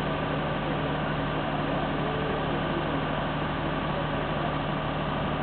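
Steady, unbroken hum of an idling engine, with a constant low drone and no change in pitch.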